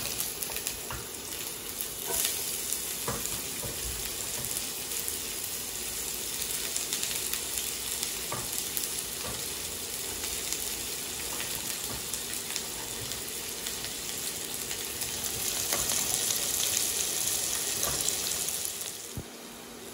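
Chopped onion and garlic sizzling in hot oil in a frying pan, a steady hiss with a few light clicks. The sizzle grows louder for a few seconds near the end, then drops away.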